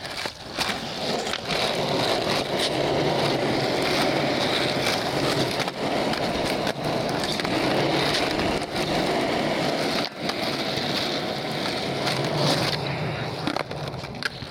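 Skateboard wheels rolling on rough asphalt in a steady rumble, broken several times by sharp clacks of the board popping and landing during flatground tricks.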